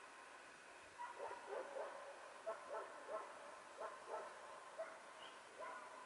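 A dog barking: a run of about a dozen short, faint barks and yelps that starts about a second in and stops near the end.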